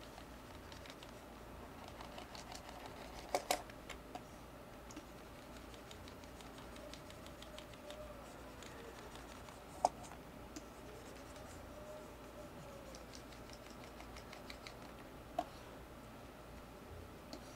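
Quiet room tone with a few soft clicks from computer input devices at a desk: a close pair about three and a half seconds in, single clicks near ten and fifteen seconds, and light scratchy tapping in between.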